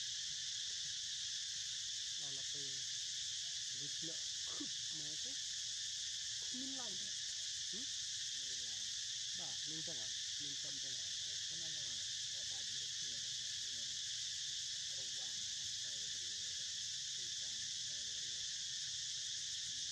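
Steady, unbroken high-pitched insect chorus droning at an even level throughout, with faint distant voices underneath.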